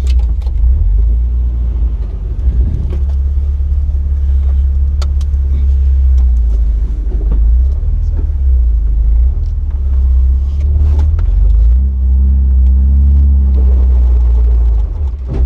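Jeep Wrangler LJ's engine running under load as it crawls over rock, a deep steady rumble with scattered knocks and clunks from the rocks and the chassis. The engine pitch rises briefly about twelve seconds in.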